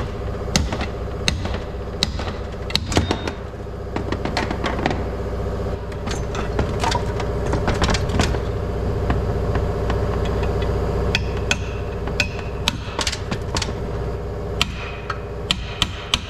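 Irregular sharp metal knocks and clinks of hand tools working on a truck's front differential housing during teardown, over a steady hum.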